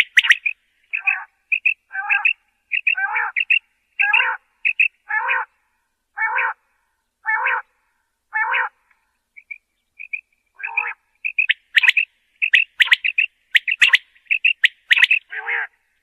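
Common quail calling: short repeated notes, about one a second through the middle, breaking into a faster run of sharp notes in the last few seconds.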